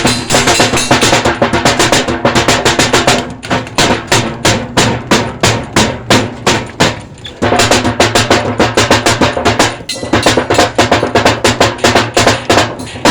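Fast drumming over music with a steady bass line, the rapid strikes easing briefly about three and a half seconds in and again around seven seconds before picking up.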